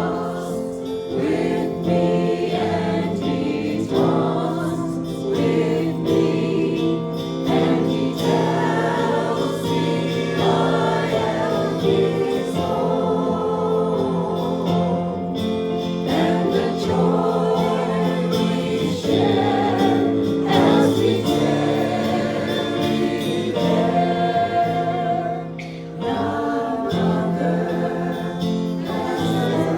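A group of voices singing a gospel worship song, with held notes and a brief lull near the end.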